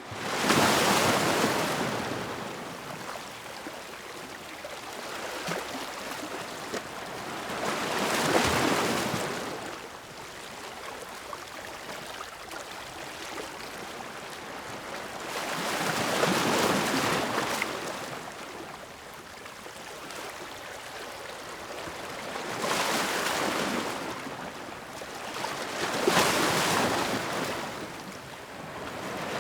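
Ocean waves breaking on the shore: a hiss of surf that swells and fades, with a wave crashing every several seconds, about five times.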